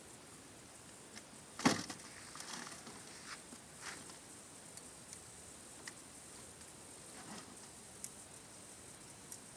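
Faint outdoor background with a steady high-pitched insect hum, broken by scattered light clicks and one sharp click just under two seconds in.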